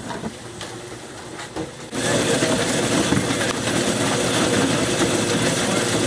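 Motorised grape crusher-destemmer running steadily, coming in abruptly about two seconds in after some quieter clicks and rustling.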